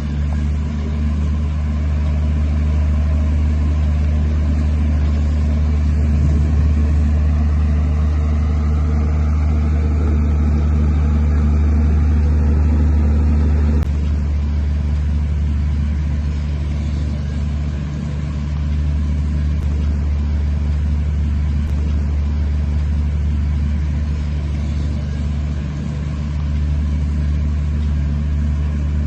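Heavy earthmoving machine's diesel engine running steadily with a deep drone. The sound shifts abruptly about halfway through.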